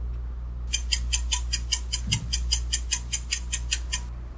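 Quiz countdown-timer sound effect: fast clock ticking, about five ticks a second, starting under a second in and stopping shortly before the end, over a steady low hum.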